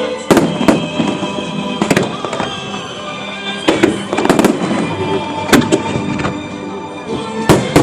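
Aerial fireworks exploding: a string of about ten sharp bangs at uneven intervals, some in quick pairs, with music playing underneath.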